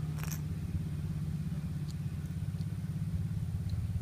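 Steady low hum of a running shop fan, fluttering slightly, with a few faint clicks as the sensor is handled.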